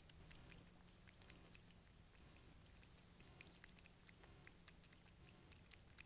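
Domestic cat lapping water from a shallow bird bath: faint, quick, irregular wet clicks of its tongue at the water surface.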